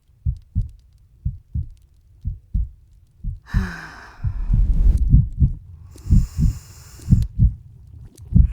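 Heartbeat sound effect: a lub-dub pair about once a second that quickens after about four seconds in. Two long breaths come about three and six seconds in.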